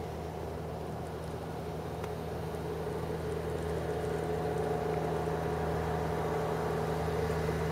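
A vehicle engine idling: a steady low hum that grows slowly louder.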